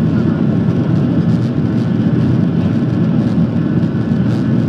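Steady, loud cabin noise of a Boeing 737-700's CFM56-7B turbofan engines, heard through the fuselage as the airliner moves along the runway.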